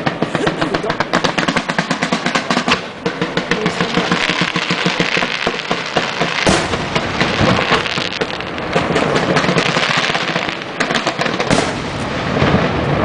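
Fireworks display: a rapid string of firework reports, several a second, for the first few seconds, then dense crackling from ground fountains and mines, with louder shell bursts about six and a half seconds in and again near the end.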